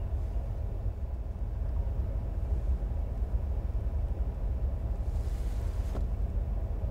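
Low steady rumble of a car heard from inside the cabin, as of the engine idling. A short soft hiss comes about five seconds in, ending in a faint click.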